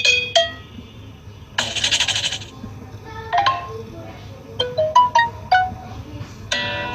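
Samsung Galaxy J7 Max notification tones played one after another: short bright chimes and pings, a shimmering jingle about two seconds in, a few quick high pings around the middle, and a held chord starting near the end.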